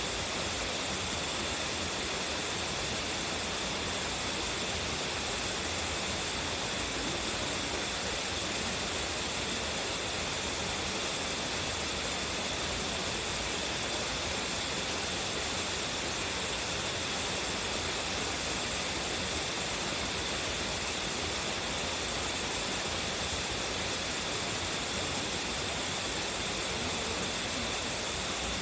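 Waterfall with a strong flow, its water falling and rushing in a steady, unbroken roar.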